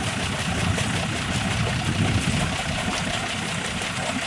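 Nissan Safari's 4.2-litre TD42 turbo-diesel engine idling steadily while the truck sits bogged in mud.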